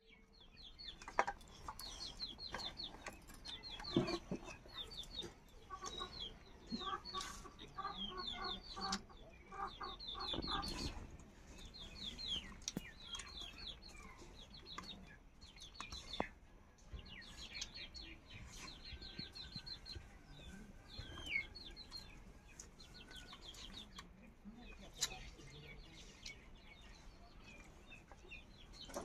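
Chickens clucking and birds chirping in quick repeated series, with scattered sharp clicks now and then.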